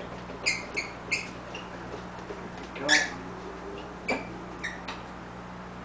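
Short, high-pitched squeaks, about seven at uneven intervals with the loudest about three seconds in, as engine-bay parts are worked by hand. A steady low hum runs underneath.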